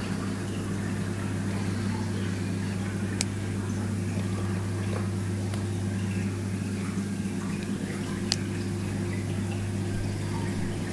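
Aquarium pump running: a steady low hum with water bubbling and trickling, and two sharp clicks, about three seconds in and again about eight seconds in.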